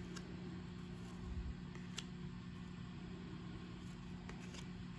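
Steady low hum with a few faint, sharp clicks of baseball cards being handled, about four in all.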